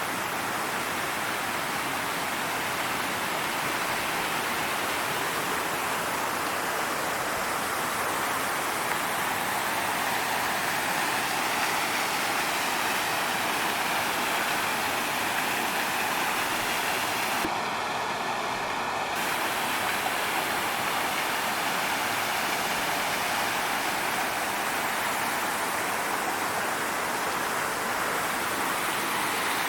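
Small stepped waterfall pouring over rock ledges into pools: a steady rush of falling water.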